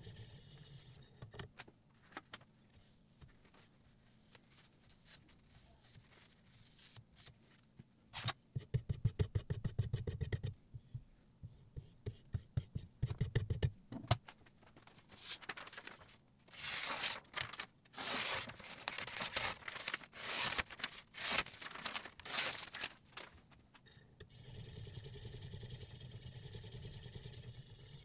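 Sharpening stone on the guide rod of a Sytools Beast clamp sharpener scraping along a kitchen knife's edge in rapid rasping strokes. About a third of the way in there is a run of quick clicks and knocks from handling the metal rig and stones.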